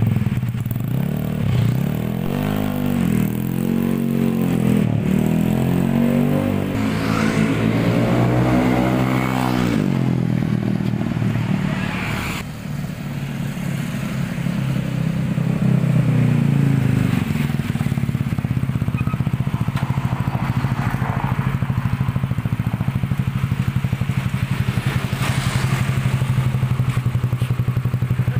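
Bored-up Yamaha Mio scooter's single-cylinder engine through an F2racing Trioval M.1 aftermarket silencer. It is revved in a series of throttle blips over the first ten seconds, then runs on the move for a few seconds, then idles steadily with an even exhaust beat.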